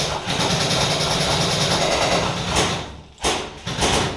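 Airsoft electric gun firing long full-auto bursts, a rapid mechanical buzz that breaks off about three seconds in and starts again briefly.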